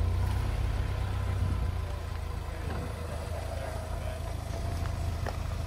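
Car engine running steadily at low revs, a low rumble. A single short click comes about five seconds in.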